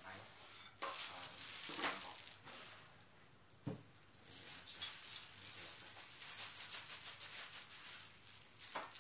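Cardboard box and a plastic packaging bag rustling and crinkling as a power tool is unpacked by hand. There is a single dull knock a little before halfway, then a long stretch of plastic crinkling.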